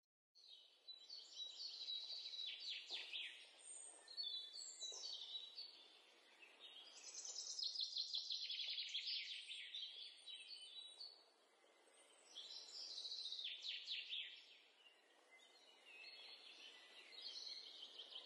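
Small songbirds chirping and trilling in quick runs of high notes, in several bouts with short lulls, over a faint steady hiss.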